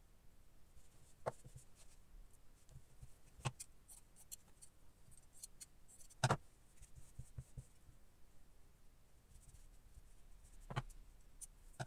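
Fabric scraps handled and laid out on a wooden tabletop: a soft rustle with four light knocks, the loudest about halfway through.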